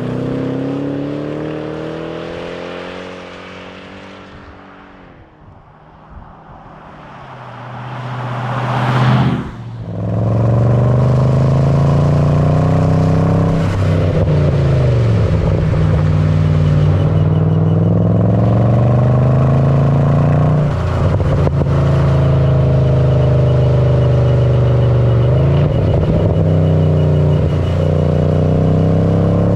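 Mercedes ML63 AMG V8 engine: it fades away with falling pitch, then swells back up loud. After a break it pulls hard through the gears, the pitch climbing steadily and dropping at each of three upshifts.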